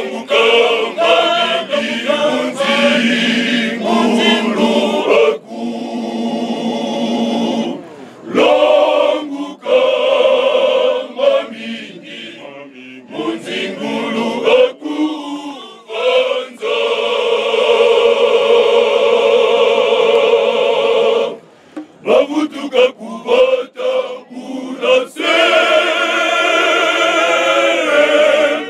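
Male choir singing in harmony, in phrases broken by short pauses, with a long held chord a little past the middle.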